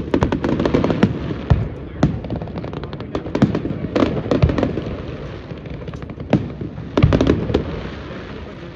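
Fireworks display: aerial shells bursting in a string of sharp bangs and crackles. There is a dense volley right at the start and another about seven seconds in, with single booms between.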